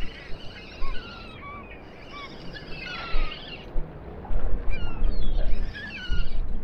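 A flock of seabirds calling: many short, high, sliding cries overlapping one another. A low rumble swells in about four seconds in and comes and goes.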